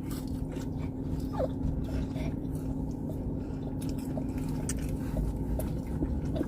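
Steady low hum of a car's engine idling, heard inside the cabin, with a few faint short squeaks and small clicks over it.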